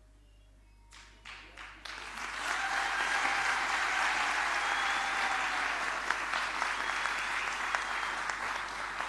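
Audience applause in a large hall. A few scattered claps about a second in build into a full round of clapping by two seconds, which holds steadily to the end.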